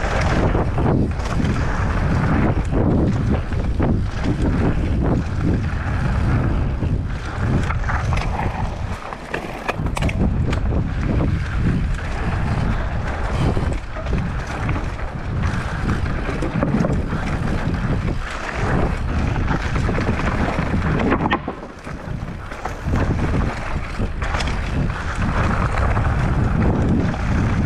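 Wind buffeting the microphone of a mountain bike descending fast, with the tyres rolling over rocky ground and the bike clattering over bumps. There is a brief lull about a third of the way in and another past two-thirds.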